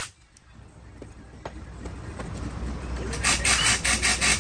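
A cordless impact wrench starts hammering on a bolt of a submersible pump's housing a little after three seconds in, going in a fast run of pulses. Before that there is only faint background and a couple of light clicks.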